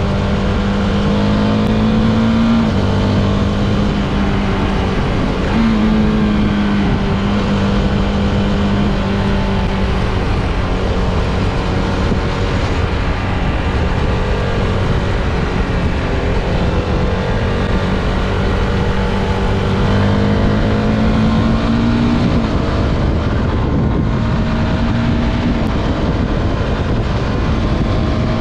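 CFMOTO 250SR's single-cylinder engine pulling under way, heard from the rider's seat over wind and road noise. Its pitch rises under throttle and steps abruptly between gears several times as it shifts without the clutch through a quickshifter.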